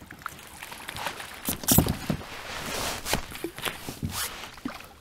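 Knocks, clicks and rustling as a landing net and fishing gear are handled against a plastic kayak's hull, with the loudest thumps about a second and a half to two seconds in.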